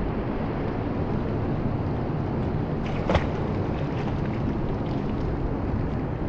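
Steady rush of a fast river flowing over rocks close by, with one brief sharp click about three seconds in.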